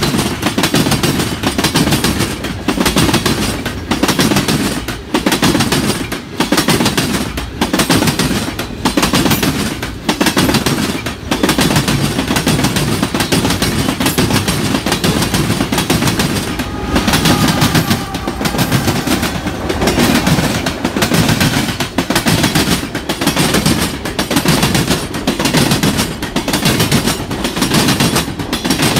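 Freight cars of a mixed freight train rolling past at close range: steel wheels clacking over rail joints in a steady repeating rhythm, a burst of clatter and rumble about every second and a quarter.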